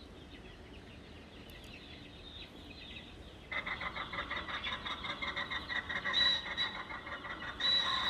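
Recorded ring-necked pheasant calls played back, starting about three and a half seconds in: a loud, harsh, rapidly pulsing call that carries on to the end.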